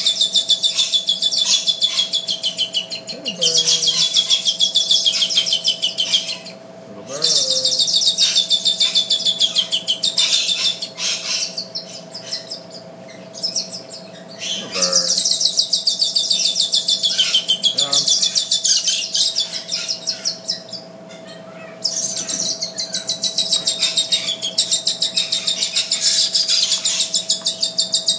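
Hornbill hatchlings calling: long bouts of rapid, high-pitched chirping, each lasting several seconds and broken by short pauses.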